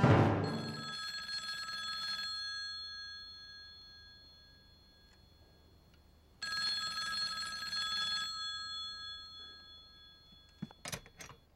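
Telephone bell ringing twice, each ring about two seconds long with a pause of about four seconds between, followed near the end by a few quick clicks.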